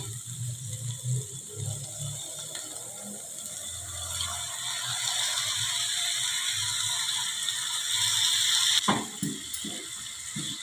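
Wooden spatula stirring and scraping minced beef in a non-stick pan while it sizzles. The sizzling hiss builds up through the middle and cuts off suddenly near the end.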